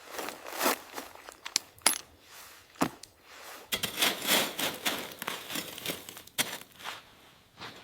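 A string of sharp clicks and knocks from small hard objects, with a stretch of dense crunching and scraping in the middle.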